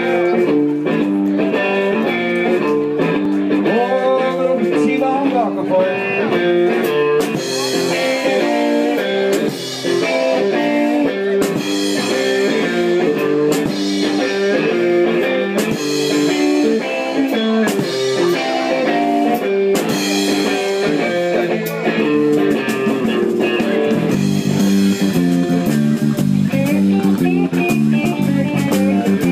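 A live instrumental trio of guitar, five-string bass guitar and drums. The guitar plays melodic single-note lines, with cymbals coming in about seven seconds in. The bass, a Warwick Corvette Proline 5 played through a DNA-800 amp into two DNA 112C cabinets, gets heavier in the low end about 24 seconds in.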